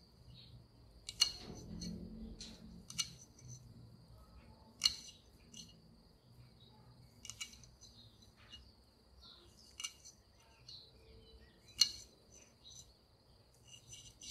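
Small knife chopping garlic cloves: sharp single chops every second or two, with lighter taps between, over a steady high whine.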